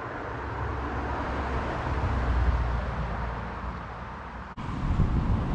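A car passing on a nearby road: tyre and engine noise that swells to a peak about halfway through and then fades. The sound drops out for an instant near the end.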